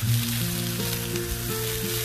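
Eggs sizzling on a hot flat-top griddle as they fry in rendered bacon grease, a steady crackling hiss. Background music plays under it.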